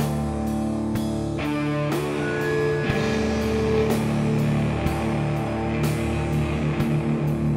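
Stoner doom jam: guitar holding long droning notes over a drum kit keeping a steady beat of about two hits a second.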